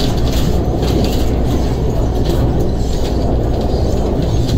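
Steady low rumble of a moving MTR East Rail line electric train, heard from on board: running gear and wheels on the rails, with scattered short clicks.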